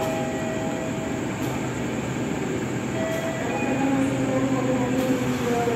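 CC203-class diesel-electric locomotive running as it is shunted slowly toward the platform, a steady engine note that grows a little louder about halfway through.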